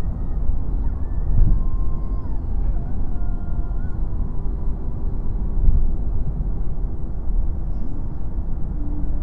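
Steady low rumble of road and engine noise inside a car's cabin while cruising on an expressway. Faint pitched tones drift over it in the first few seconds.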